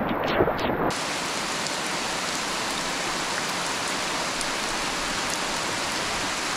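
Heavy rain pelting a river's surface and gravel bank: a steady, even hiss with faint scattered drop ticks. For about the first second it is louder and rougher, with low knocks, then it settles.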